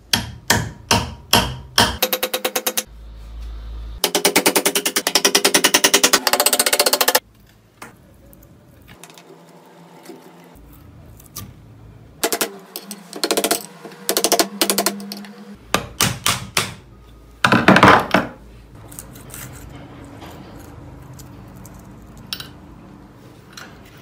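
Hammer blows knocking the old wedge, a rusty nail and the broken wooden handle stub out of the eye of a rusty claw hammer head. Single sharp strikes come first, then a fast, even run of strikes for about three seconds, then more groups of knocks.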